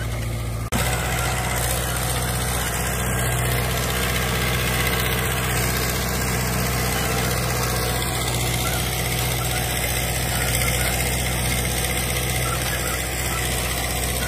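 Digitrac PP51i tractor's diesel engine running steadily under load while it pulls a double set of disc harrows through the soil. There is a sudden break and jump in level under a second in.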